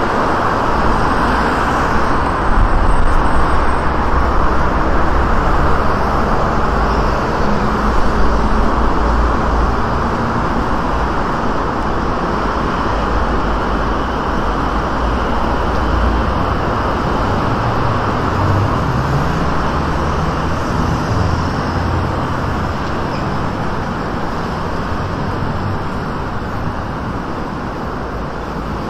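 Steady city traffic noise of cars and buses on a wide multi-lane road, with a heavier low rumble of passing vehicles in the first half.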